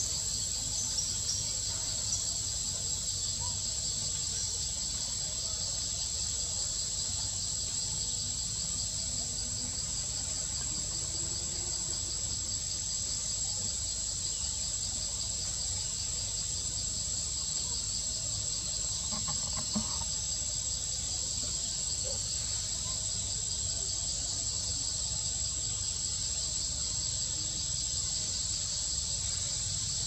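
Steady chorus of insects: a continuous high-pitched shrill with a fast pulsing buzz just below it, over a low rumble.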